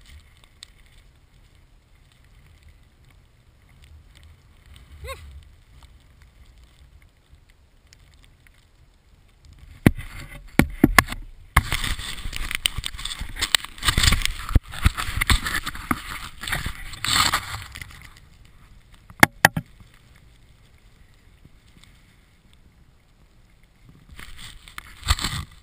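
Skis sliding and scraping through snow, with wind rushing over the microphone. The first stretch is fairly quiet. About ten seconds in, loud rushing noise with sharp knocks begins and runs for several seconds. A pair of sharp knocks follows near twenty seconds, and the rushing picks up again near the end.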